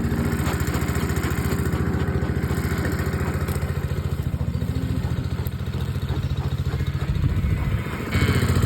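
An engine idling steadily, with an even low pulsing that gets a little louder near the end.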